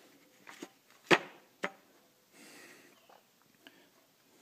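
A steel boring bar handled in and set back into its metal kit case: a few sharp clicks and knocks of metal on metal, the loudest about a second in, then a short soft scrape.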